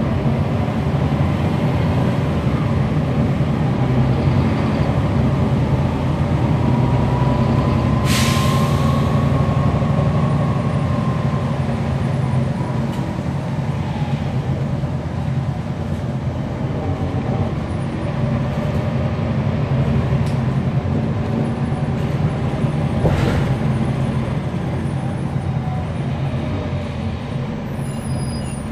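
NABI 416.15 transit bus running under way, heard from on board: the Cummins ISL9 diesel and ZF Ecolife automatic transmission hum steadily, and a whine rises in pitch about six seconds in, holds, then fades. A short, sharp hiss of compressed air comes about eight seconds in, and a fainter one near the end.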